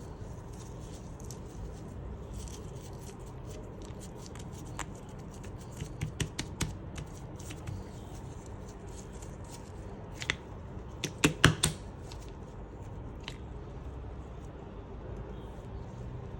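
Slime being pressed and played with by hand, giving scattered sharp clicks and pops, with the loudest cluster of pops about eleven seconds in.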